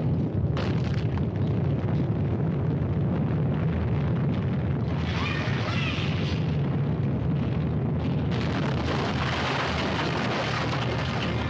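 Earthquake sound effect: a loud, steady deep rumble, with a harsher crashing noise joining about eight seconds in.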